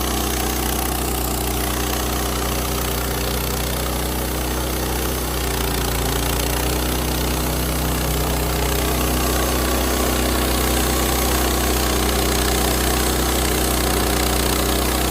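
Portable sawmill's engine idling steadily, a constant even drone.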